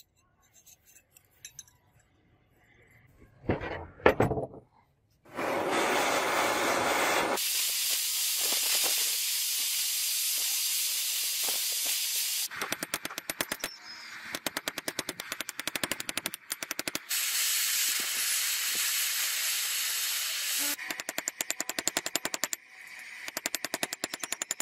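A gas torch hissing steadily as it heats a steel scissor ring, at times turning to a rapid, even sputter of about ten pops a second. A single knock comes about four seconds in, before the torch starts.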